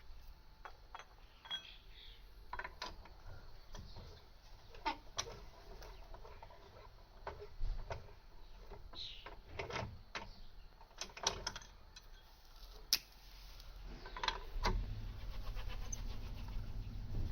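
Birds chirping now and then, mixed with scattered light clicks and knocks. A low steady rumble comes in near the end.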